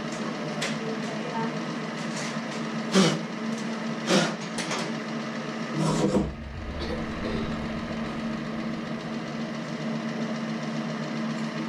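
Old metal shaper's motor running with a steady hum. Over it come a few sharp metal clanks, the loudest about three, four and six seconds in, the last with a low thud.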